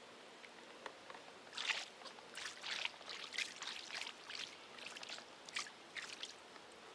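Small splashes of water at the surface, a rapid irregular run of them starting about a second and a half in and stopping near the end.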